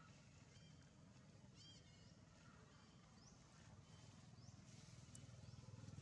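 Near silence: faint outdoor background with a low rumble and a handful of short, high chirps spaced a second or so apart.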